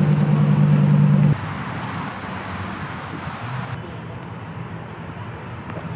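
A car engine running at a steady speed, a low even drone that stops abruptly about a second in; after it, outdoor crowd ambience with voices.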